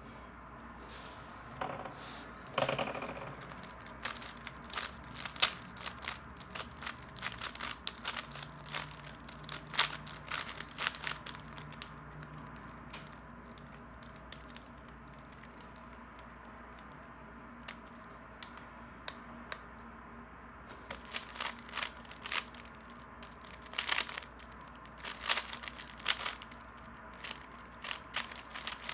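3x3 speedcube turned rapidly during a solve: quick runs of plastic layer clicks and clacks. The clicking stops for several seconds in the middle, then a second run starts.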